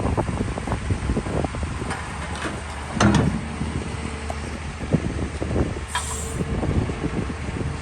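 Hyundai R220LC-9A crawler excavator running, its diesel engine humming steadily under irregular knocks and clanks. There is a heavier thump about three seconds in and a short hiss about six seconds in.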